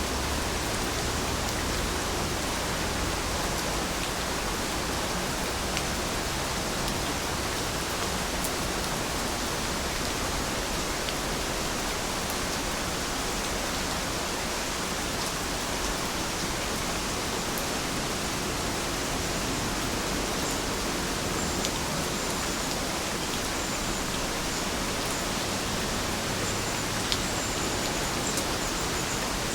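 Steady, even rain, a dense hiss of falling drops with a few separate drop ticks.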